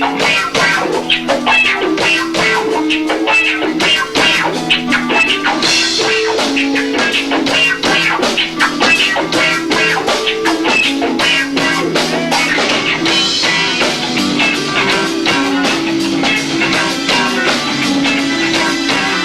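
Live rock band playing with two drummers: a repeating guitar riff over fast, dense drumming, heard through lo-fi camcorder audio.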